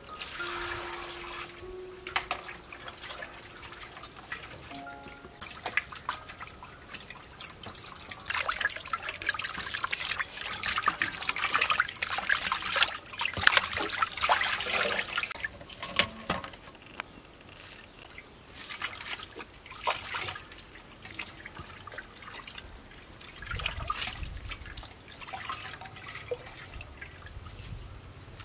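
Water splashing and sloshing in a stainless steel bowl as hands rub and wash pieces of raw meat, starting with water poured in from a plastic scoop. The splashing is loudest in the middle stretch.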